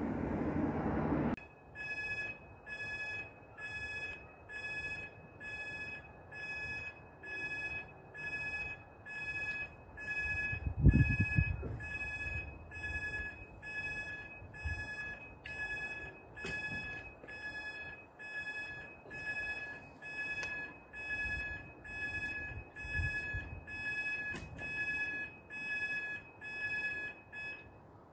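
Level crossing warning alarm sounding as the barriers come down: high beeps pulsing on and off evenly, a little more than once a second, stopping just before the end. A brief low rumble about eleven seconds in. The first second holds the tail of a passing train's noise.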